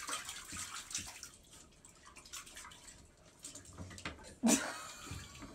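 Dog lapping water from a toilet bowl with its head down in the bowl: a run of small, irregular wet laps and splashes, with a briefly louder sound about four and a half seconds in.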